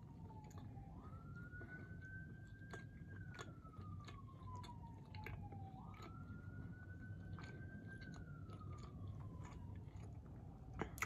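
Faint emergency-vehicle siren wailing: the pitch jumps up, holds high, then slides slowly down, in cycles of about five seconds, two full cycles. Under it are quiet chewing and small mouth clicks.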